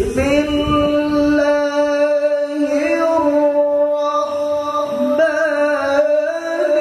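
A man's Quran recitation (tilawah) in the melodic chanted style, amplified through a microphone: one long note held on a single breath through the whole stretch, with a few step changes in pitch and small ornamental turns.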